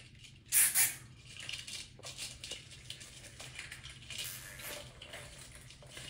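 Rustling and crinkling of artificial Christmas tree branches as an ornament ball is pushed in among them and tied on, with a louder brief swish about half a second in and a few small clicks.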